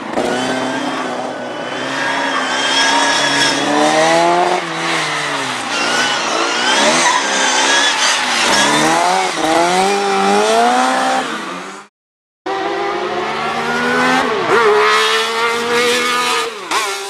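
Classic Mini's four-cylinder A-series engine revving up and easing off again and again as the car is driven hard around a cone course. A brief cut to silence about twelve seconds in, then more rising revs.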